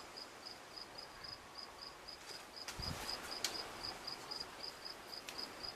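Insect chirping steadily in short, even, high-pitched pulses, about three to four a second. A few faint clicks and a soft low thump occur around the middle.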